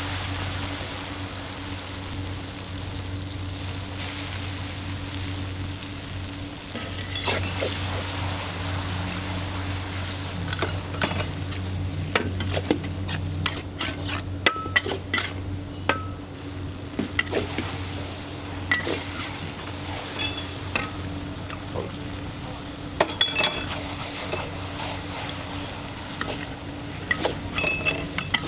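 Char kway teow flat rice noodles sizzling as they are stir-fried in a wok, over a steady low hum. From about seven seconds in, a metal spatula repeatedly clanks and scrapes against the wok.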